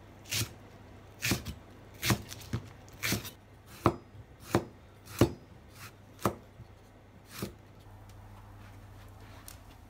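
Square-bladed kitchen knife chopping green onion and carrot on a wooden cutting board: about ten separate cuts, roughly one a second, that stop about seven and a half seconds in.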